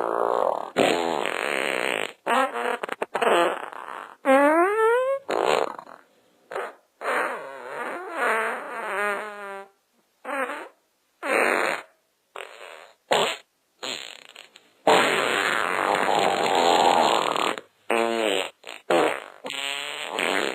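A rapid series of separate fart sounds with brief silences between them, some short and sputtering, one with a rising pitch a few seconds in, and a long noisy one in the second half.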